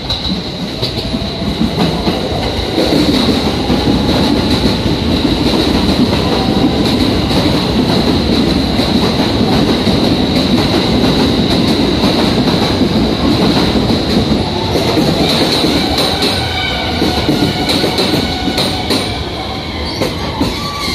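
JR West electric commuter train running into a station platform: a loud rumble that swells over the first few seconds, with wheels clacking over rail joints and a steady high whine. From about two-thirds of the way in, wheel and brake squeals join as a train slows.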